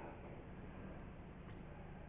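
Faint steady hiss and low hum of room tone, with one faint tick about one and a half seconds in.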